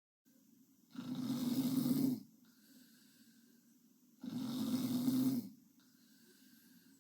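A sleeping girl snoring in a slow, regular rhythm: two snores about three seconds apart, each lasting just over a second.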